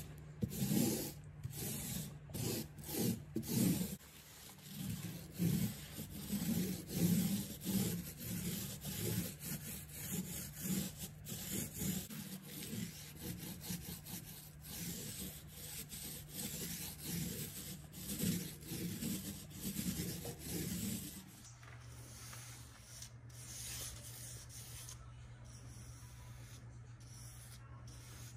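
Mini paint roller rolling paint onto a wall in quick back-and-forth strokes, a rhythmic rubbing about twice a second. About two-thirds of the way through it gives way to the quieter strokes of a paintbrush laying paint along an edge.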